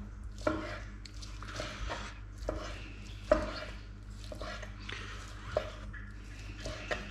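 Knife slicing cooked pork into strips on a plastic cutting board: irregular knocks of the blade reaching the board, the loudest about three seconds in, with soft scraping and squishing of the meat between them. A steady low hum runs underneath.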